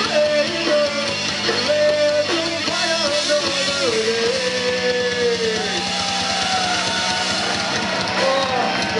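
Rock band playing live through a PA: electric guitars and drums, with a melody line that holds and bends over them.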